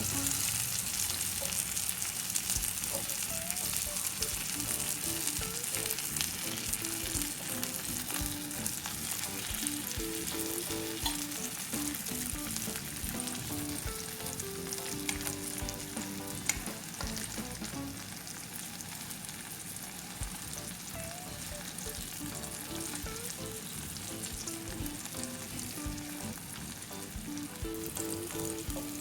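Food frying in a pan with a steady sizzle and crackle of hot oil throughout.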